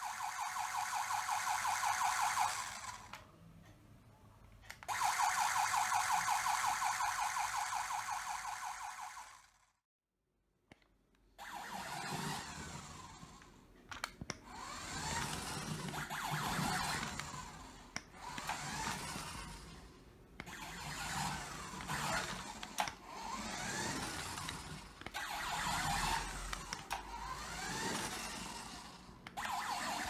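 Electronic siren sound module playing through a small toy speaker on a remote-control toy car: first two bursts of a fast warbling siren tone, then, after a short break, a rising-and-falling siren wail that swells and fades every couple of seconds, with a few sharp clicks. The siren sounds while the car drives forward.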